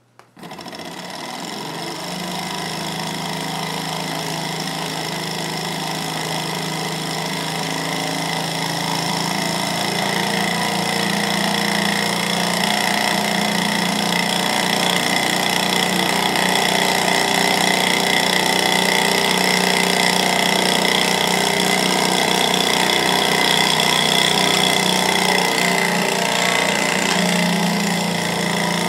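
Small twin-cylinder Stirling engine started with a flick of the flywheel, then running fast with a steady mechanical rattle that grows louder over the first ten seconds or so.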